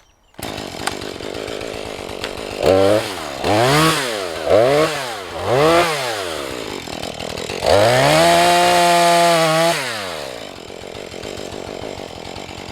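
Husqvarna 435 two-stroke chainsaw idling, blipped up and down four times, then held at high revs for about two seconds while cutting through the strap of a bore cut, before dropping back to idle.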